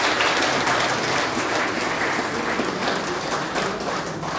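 Audience applauding, loudest at the start and slowly easing off.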